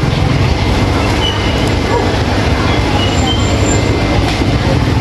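Steady low rumble of a small motorbike engine running, with faint short high chirps and clinks over it.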